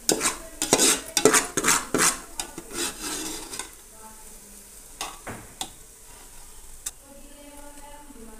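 Steel ladle scraping and stirring fried onions against the side of a steel pot over sizzling oil, as the onions are scooped out. The scrapes come quick and dense at first, then after about four seconds thin out to a few single clinks.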